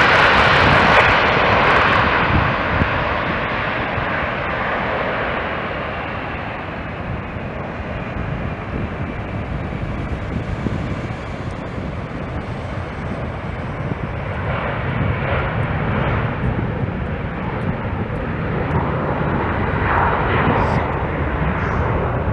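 Jet engines of a Boeing 777-300ER, its GE90 turbofans, running as the airliner rolls slowly along the runway: a loud hiss at first that fades over several seconds into a steady rumble, with a faint high whine.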